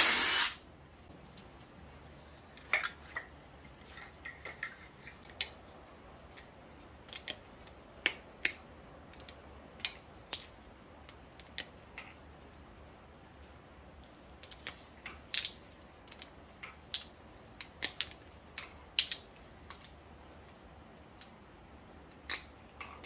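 Scattered sharp metallic clicks and clinks as hydraulic lifters are worked out of the lifter bores of a 4.8-litre LS V8 block and gathered together in a hand. There is a short louder rasp right at the start.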